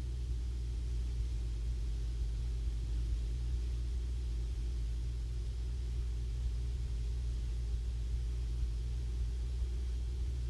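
Cessna 150's Continental O-200 four-cylinder engine running steadily at full power in the climb just after takeoff, a constant low drone.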